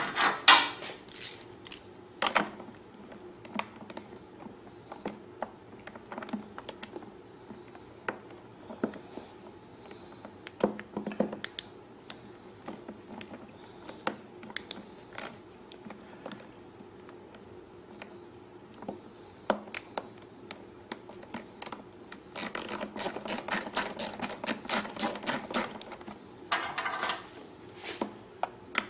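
Socket ratchet clicking as a quarter-inch bolt is tightened down, among scattered small clicks and taps of metal parts and tools. A fast run of ratchet clicks comes about three-quarters through.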